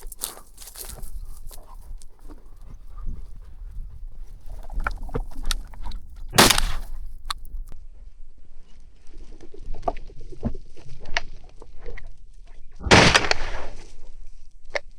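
Footsteps crunching over rocky, icy ground, with one loud shotgun shot about six and a half seconds in, likely at a flushing chukar. A brief rush of noise comes about two seconds before the end.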